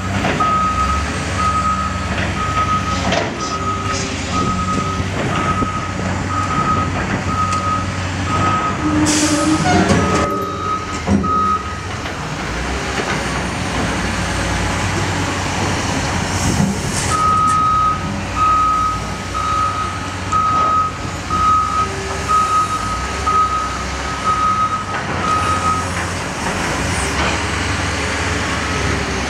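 Cat wheel loader's diesel engine running steadily while its backup alarm beeps about one and a half times a second. The beeping stops about twelve seconds in and starts again for roughly nine seconds in the second half. A few clanks come about a third of the way through.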